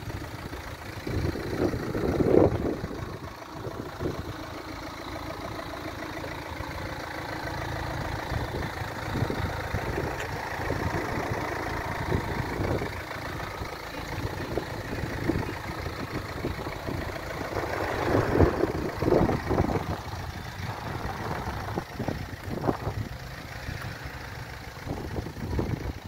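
Car engine idling steadily, with irregular louder buffets about two seconds in and again near the end.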